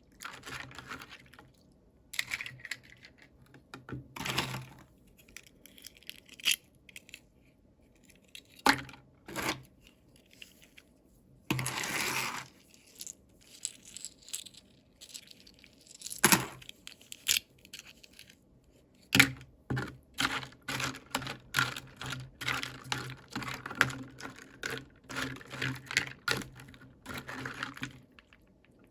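Toy packaging being handled and opened: scattered sharp clicks and taps of plastic, with a longer tearing sound about twelve seconds in and a quick run of clicks and taps in the last third.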